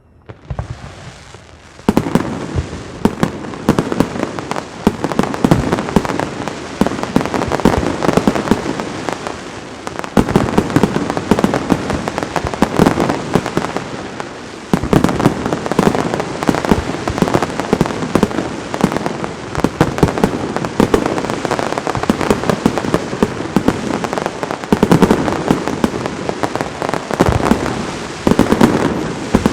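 Castillo aerial fireworks by Pirotecnia Zaragozana: a rising hiss, then from about two seconds in a dense, continuous barrage of crackling and bangs. The barrage grows heavier about ten, fifteen and twenty-seven seconds in.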